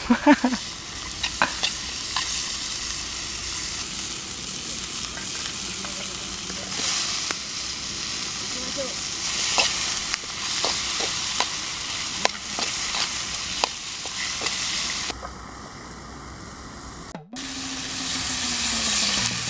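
Chopped chillies and tomatoes sizzling as they are stir-fried in a blackened steel wok over a wood fire. A metal spatula scrapes the pan and clicks against it now and then. Near the end, after a brief break, water is poured from a pot into the wok.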